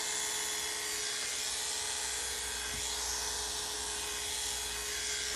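Corded electric dog clippers with a number 10 blade and a number 2 guide comb running in a steady hum as they cut through a doodle's wavy coat.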